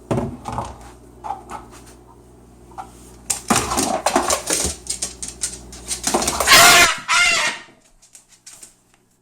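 Cockatoo attacking a dead humidifier: a run of sharp knocks and clatter, with one loud harsh squawk about two-thirds of the way through.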